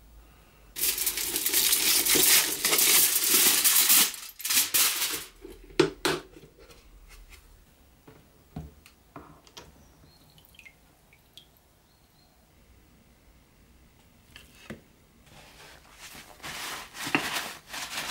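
Hands working with a plastic tub used as a hydrogen peroxide bath for whitening plastic parts. About a second in there is a loud, dense noise lasting about three seconds. Sharp clicks and knocks follow as the plastic lid is handled, then a few faint ticks, and another noisy stretch near the end.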